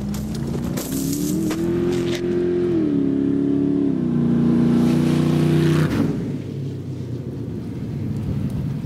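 An off-road Jeep's engine revs as it drives hard on a dirt track. The pitch climbs steadily, then drops in two steps like gear changes and holds. It cuts off about six seconds in, leaving a steady hiss of noise.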